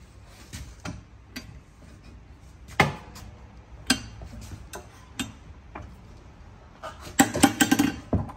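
Knocks and clicks of an 8-inch FloorCrafter drum floor sander being handled, with single loud knocks about three and four seconds in. Near the end comes a quick run of louder clunks as the machine is tipped over onto its back on the wooden bench.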